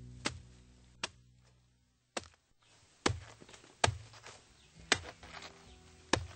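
A blade chopping into a banana plant's trunk: seven sharp blows, roughly a second apart. Background music fades out over the first second.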